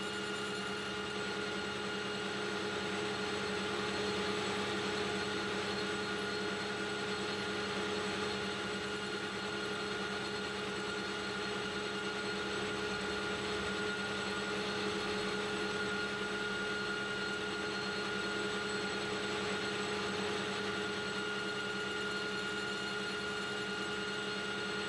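AL960B metal lathe running steadily under power feed during a finishing cut in a 4140 steel spindle housing: an even whir with a few fixed tones over a hiss.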